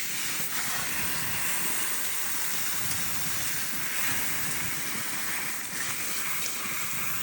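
Shower spray running steadily, an even hiss of falling water.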